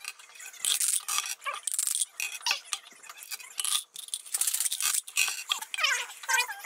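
Dice rattling in a plastic dice cup and clattering onto a wooden tabletop, over and over.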